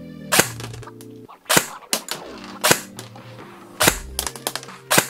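Double Eagle UTR45 airsoft gun firing single shots through a chronograph, five sharp cracks about a second apart, each shot measuring around 330 fps with a lower-power spring fitted.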